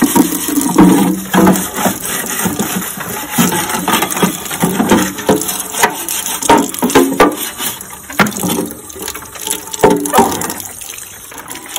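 A stiff hand brush scrubbing and scraping a wet plastic feeder tray, with quick strokes, knocks of the plastic and water sloshing. The scrubbing thins out near the end.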